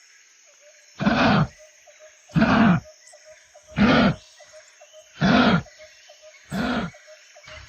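Kangaroo giving five short, harsh calls, about a second and a half apart, each with a low pitch that rises and falls.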